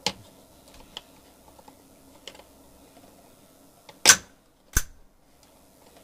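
Sharp plastic clicks and knocks from a Bluetooth speaker being handled and worked on at a repair bench: a few light ones, then two loud ones about four seconds in, less than a second apart.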